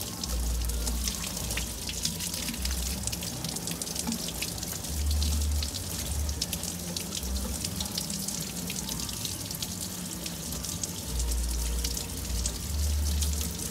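A jet of water spraying onto a caged hill myna and the cage bars: a steady hissing splash with a dense patter of droplets. Dull low rumbles come and go underneath.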